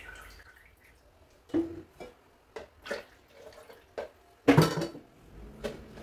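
Scattered knocks and clinks of a stainless-steel bowl and kitchen utensils against a plastic blender jar as ingredients are tipped in. The loudest clatter comes about four and a half seconds in.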